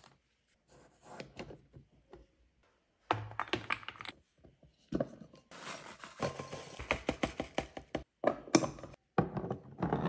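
Muscovado sugar poured from a plastic pouch into a glass jar: a steady crackle of grains running into the glass with the pouch crinkling. A few light clicks of a jar lid and plastic scoop come first.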